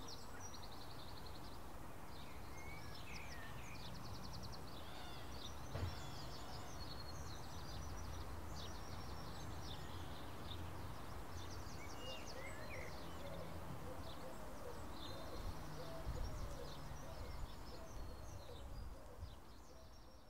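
Outdoor birdsong ambience: many small birds chirping and trilling in short scattered calls over a steady low rumble of background noise.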